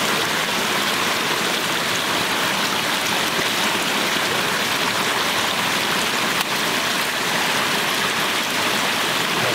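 Water gushing steadily through a bamboo-slat fish trap, splashing over the slats.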